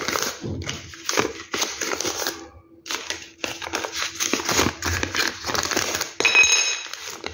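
Paper euro banknotes rustling and crinkling in irregular bursts as a bundle of notes is handled and sorted by hand, with a short high-pitched squeak about six seconds in.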